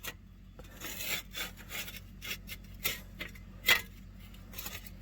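Hand tools and small metal bolts clicking and scraping at irregular intervals, with one louder click about three-quarters of the way through, as a splash guard is fastened with 8mm bolts.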